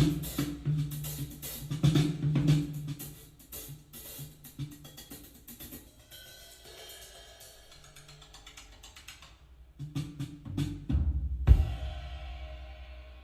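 Drum-kit music (snare, kick drum, cymbals and hi-hat) played back through a Yamaha YSP-2700 sound bar. Dense drumming thins out to a quieter sparse passage, then a few heavy hits come about ten seconds in, ending in a final crash that rings out and fades.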